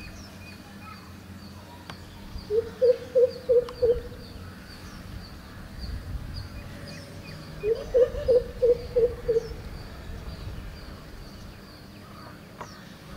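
Greater coucal calling: two bouts of low, evenly spaced notes, about six or seven quick notes each, a few seconds apart. A faint, high, steadily repeating chirp runs underneath.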